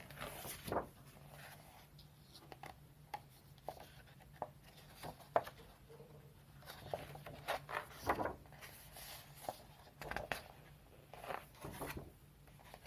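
Pages of a thick colouring book with heavy paper being turned one after another: irregular rustles and soft flaps of paper, some louder than others.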